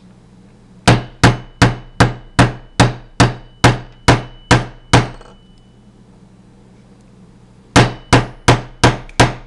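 Small hammer tapping a punch to drive the steel roll pin of an AR-15 bolt catch into the lower receiver: a run of about eleven even taps with a faint metallic ring, a pause of about three seconds, then six quicker taps near the end. These are the last taps that set the pin flush.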